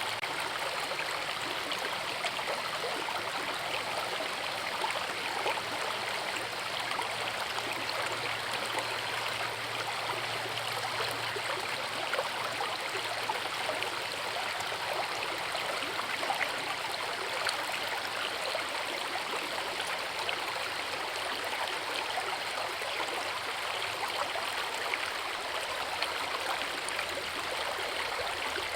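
A forest river rushing steadily over a waterfall: an even, dense rush of water full of small splashes.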